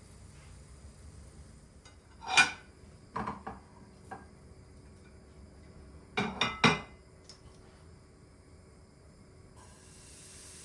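Dishes and kitchen utensils knocking and clinking: one sharp clink about two seconds in, a few lighter knocks just after, and a quick run of three clinks past the middle.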